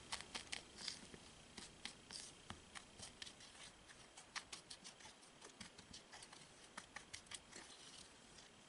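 Faint, irregular clicks and scrapes of a spatula against a small glass bowl, mixing dry cocoa powder and starch together.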